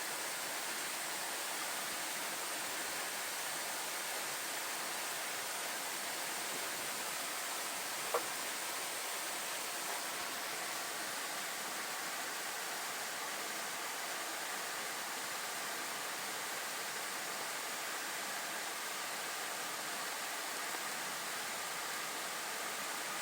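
Steady rushing of water, an even hiss that does not change, with a single short tick about eight seconds in.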